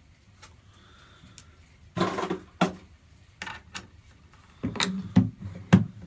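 Sharp metallic clicks and clinks of brass rifle cases against the shell holder and steel parts of a single-stage reloading press. The press ram then clunks as it runs a case up into the sizing die, and the clicks come louder and closer together near the end.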